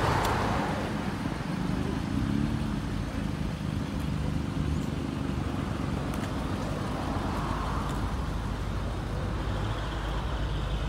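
Toyota Celsior's 4.3-litre V8 idling steadily through an aftermarket Ganador exhaust.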